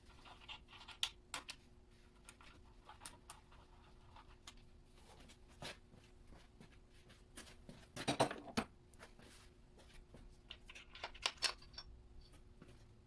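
Irregular metallic clinks and clanks of tools and engine parts being handled during a small-block engine teardown, with a denser burst of clatter about eight seconds in.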